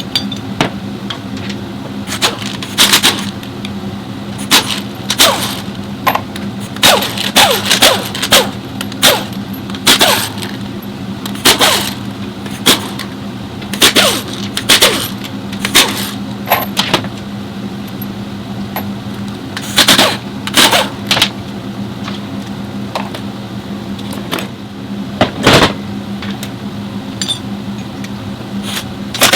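A steady low hum under frequent, irregular sharp metallic clanks and clinks, some of them ringing briefly.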